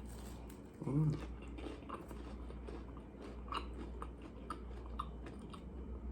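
Person chewing food close to the microphone: soft, scattered mouth clicks and small crunches, with a brief hummed vocal sound about a second in.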